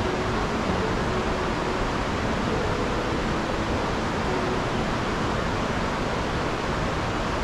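Verzasca mountain river rushing over rocks: a steady, even rush of water.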